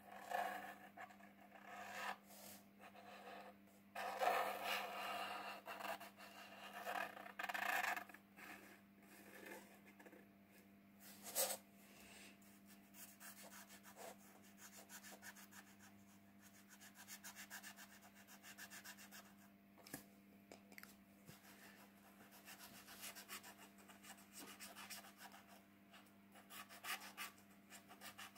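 Felt tip of a Molotow ONE4ALL acrylic paint marker rubbing and scratching across paper in uneven drawing strokes, loudest between about four and eight seconds in. A steady low hum runs beneath.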